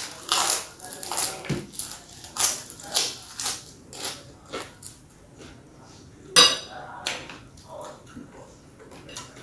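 A person biting and chewing crunchy food close to the microphone: a run of crisp crunches over the first four seconds, then a single loud crunch about six and a half seconds in.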